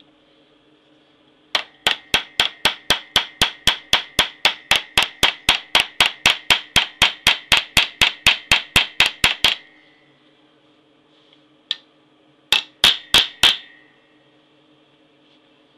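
Small hammer tapping a brass pin through a knife handle clamped in a steel bench vise, setting the pin: a long run of quick, even taps, about four or five a second with a light metallic ring, for about eight seconds. After a pause comes one tap, then a short burst of four more.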